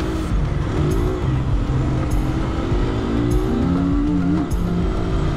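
Motorcycle running at riding speed with road and wind noise, mixed under background music with a stepping bass line.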